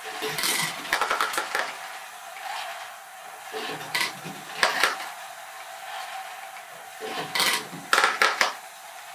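LEGO ball-conveyor screw module running: small plastic balls clatter and click irregularly as they roll through the turning helix of curved plastic panels and down the ramp, over a steady motor whir.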